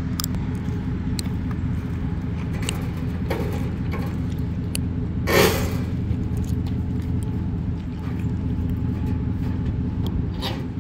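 An engine idling steadily with a low hum throughout. About halfway through comes one short, loud scrape as the metal trailer fender is set over the wheel, with a few light clicks around it.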